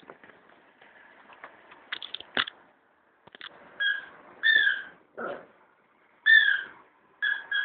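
Small terrier playing with a toy on carpet: faint scuffling and a few sharp knocks, then a run of short, high-pitched squeaks, each a fraction of a second and falling slightly, coming quickly one after another near the end.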